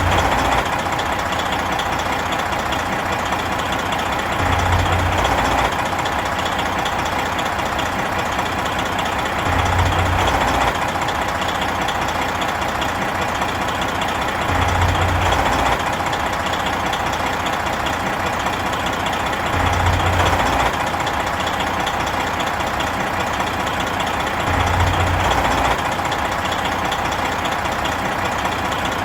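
Big truck diesel engine running steadily, swelling louder with a deeper rumble for about a second roughly every five seconds.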